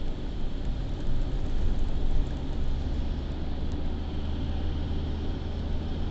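A car driving at steady speed, heard from on board: a low, even engine hum under constant road noise.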